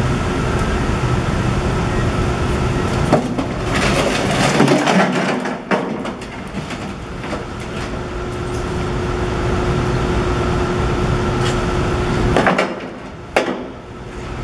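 A load of broken concrete chunks slides and clatters out of the tipping bucket of an E-750 electric wheelbarrow into a skid-steer loader bucket, about four seconds in. The clatter ends in a sharp knock. A steady mechanical hum runs under it, and a single knock comes near the end.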